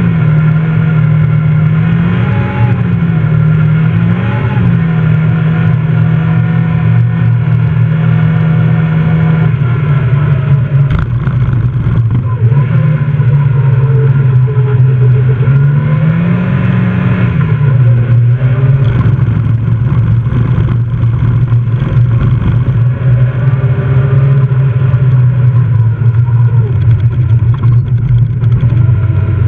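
A Fiat rally car's engine heard from inside the cabin, driven hard at high revs, its pitch mostly held steady with a few brief rises and falls as the throttle comes on and off through the corners. A few sharp knocks sound about a third of the way through.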